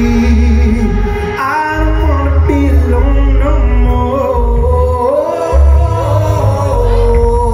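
Live band playing: a lead singer singing over electric guitars, bass guitar and drums, with a heavy pulsing low end from bass and kick drum.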